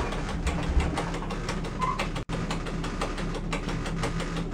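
Steady hum and drone inside an electric commuter train's driver's cab, with many small clicks and rattles over it. The sound cuts out for an instant about two seconds in.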